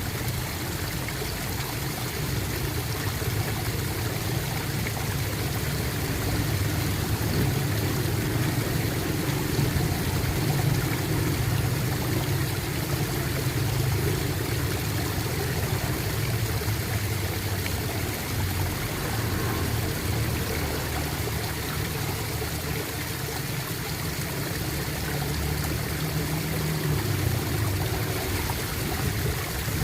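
Running water gurgling steadily, like a small stream.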